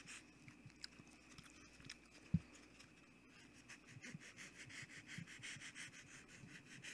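Foam board being hand-sanded with a long sanding stick: quick, repeated faint rasping strokes. A single sharp tap a little over two seconds in is the loudest sound.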